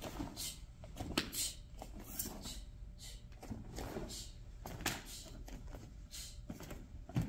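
Karate uniform swishing with fast punches and kicks, and bare feet thudding and sliding on the mat, in a string of short sharp sounds about a second apart; the heaviest thud comes near the end.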